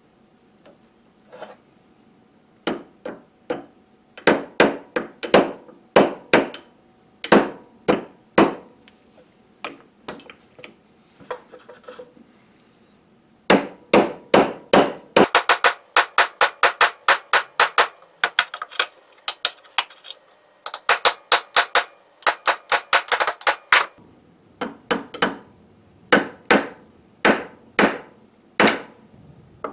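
Hammer striking a pin punch set in the chuck of a vintage brace drill, metal on metal with a short ring on some blows. It strikes about twice a second at first, then a fast run of rapid taps through the middle, then slower strikes again near the end.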